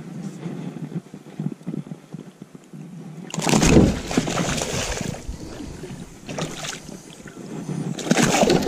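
A tarpon thrashing at the side of a small boat and splashing the water hard. The splashing comes in a loud burst about three seconds in, again briefly near six and a half seconds, and again near the end.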